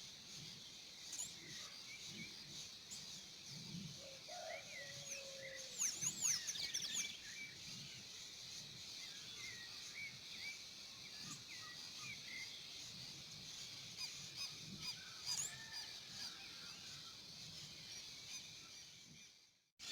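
Countryside dusk chorus: many birds chirping and calling over a steady high chirring of insects. A louder burst of bird calls comes about six seconds in, and the sound fades out just before the end.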